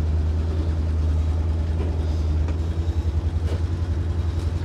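1962 Ford C750 cabover's 332 Y-block V8 running, heard from inside the cab. About three seconds in, the steady low rumble turns into a rapid, even pulsing.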